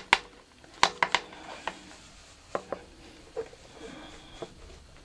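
A flexible magnetic sheet being shifted and pressed down onto a scroll saw table while it is lined up: a scatter of sharp clicks and light taps, thickest in the first three seconds.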